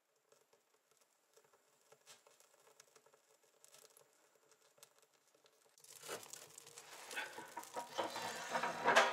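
Wood fire burning in a wood stove's firebox, with faint, sparse crackling that grows louder and denser about six seconds in. A sharp knock near the end.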